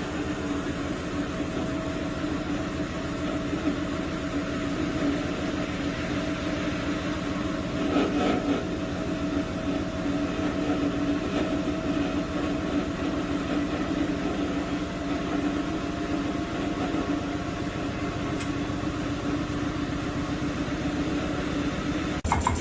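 Front-loading washing machine running: a steady mechanical hum with a constant low tone, swelling briefly about eight seconds in.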